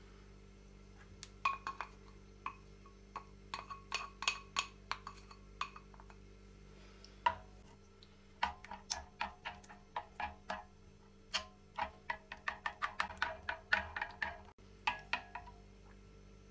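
A utensil clinking and tapping against a ringing bowl in irregular runs, faster clusters of several knocks a second in the second half, as when ingredients are mixed in a bowl.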